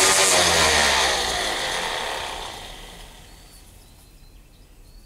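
DeWalt orbital sander running on a steel plate, sanding off paint and sharp edges, then dying away over about two seconds.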